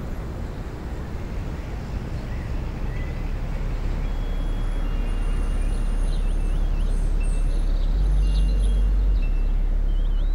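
A low, dense rumble swells steadily louder, with faint bird chirps over it in the second half.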